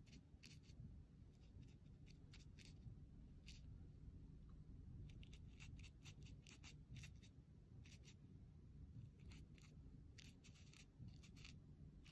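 Faint, short scratchy strokes of a wide flat watercolour brush dabbing and dragging across watercolour paper, coming in irregular clusters over a low steady hum.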